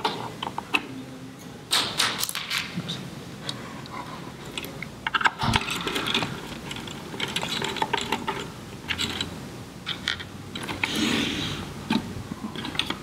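Irregular small clicks, taps and metallic rattles as the mounting-base screws of a KNF diaphragm pump are worked out and the pump is handled inside a sheet-metal instrument chassis.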